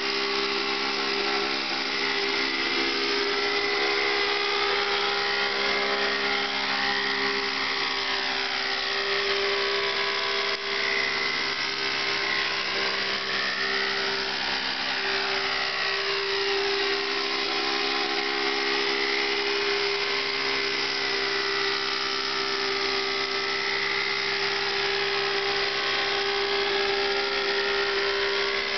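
Thunder Tiger Raptor 50 RC helicopter in a low hover, its nitro glow-fuel two-stroke engine and rotor holding a steady high-pitched whine. The tone sways slightly as the helicopter drifts about.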